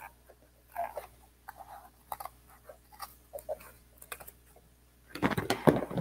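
Scissors cutting through corrugated cardboard in short, irregular crunching snips. Near the end comes a louder cluster of rustling and knocking as the cardboard is handled.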